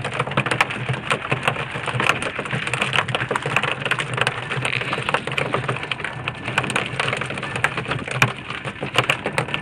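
Steady crackling hiss of seawater splashing against a small boat's hull, over the low steady hum of its outboard motor running.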